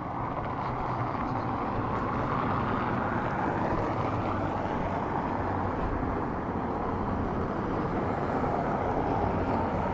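City street traffic: a steady rush of passing vehicles that swells in the first couple of seconds and then holds.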